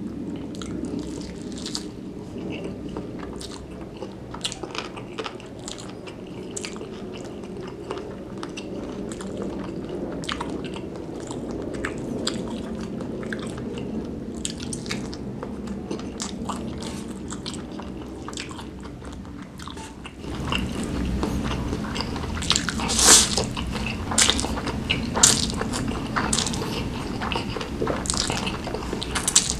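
Close-miked mouth sounds of eating: chewy beef-tendon meatballs and noodles being chewed with many small wet clicks and smacks. About two-thirds of the way through it turns louder, with sharper, wetter noises as noodles are slurped in.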